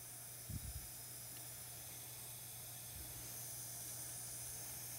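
A small dental torch flame hissing steadily while gray stick compound is warmed to its softening temperature for border molding, with a couple of soft low knocks about half a second in.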